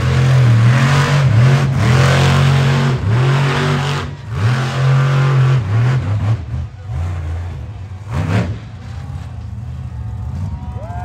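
Monster truck engine revving hard in repeated bursts, the pitch climbing and dropping again every second or so. About eight seconds in it settles to a quieter, steadier run.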